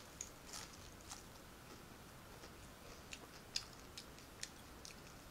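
A person chewing a mouthful of fried vegetable spring roll (lumpiang gulay) close to the microphone: faint, irregular crunchy clicks.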